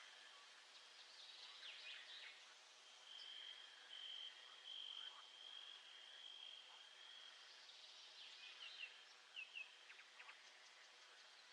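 Faint nature ambience: an insect's steady high trill holds for a few seconds mid-way, with scattered short bird chirps before and after it.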